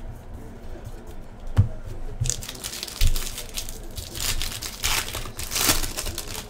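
Foil wrapper of a 2015 Bowman Draft card pack being torn open and crinkled in the hands. The crackle starts about two seconds in and grows louder toward the end, after a couple of soft knocks.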